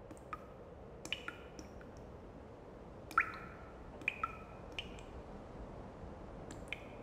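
Water dripping: irregular drops, each a sharp plink with a brief ringing tone, the loudest about three seconds in, over a faint steady hum.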